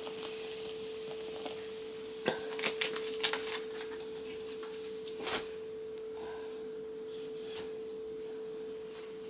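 Sparkling water poured into a plastic bowl of flour and fizzing, with a few sharp ticks about two to three seconds in and one more a couple of seconds later. A steady high-pitched hum sounds throughout.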